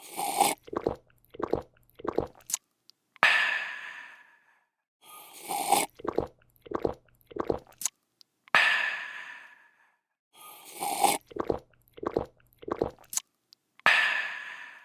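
A person slurping a drink, gulping four or five times in quick succession, then letting out a long breathy, refreshed 'aah' that fades away. The cycle repeats about every five seconds, about three times.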